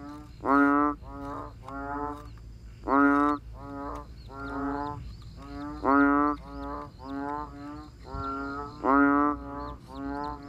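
Frogs calling: a run of short, pitched croaks, with a louder croak about every three seconds and quieter ones in between.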